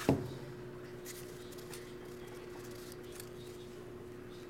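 A single thump as a tall stack of trading cards is knocked down on the table mat, followed by faint rustles and ticks of cards being handled over a steady low hum.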